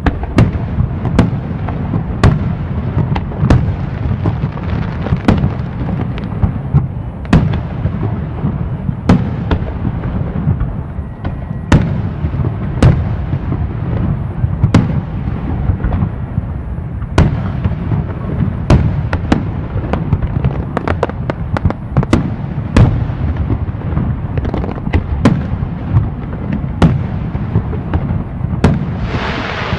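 Aerial fireworks going off: a rapid, irregular series of sharp bangs, about one or two a second and bunching up around the middle, over a steady low rumble.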